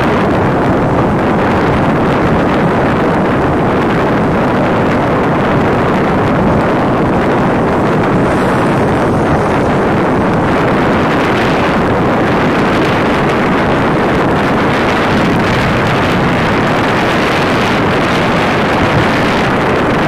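Tractor engine running steadily as the tractor works a flooded paddy field on cage wheels, mixed with wind buffeting the microphone.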